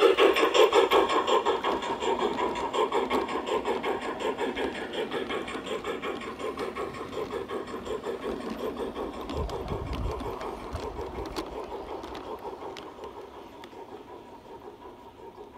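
LGB model steam locomotive chuffing rhythmically as it passes, with the rattle of its freight wagons behind. The sound fades steadily as the train runs away.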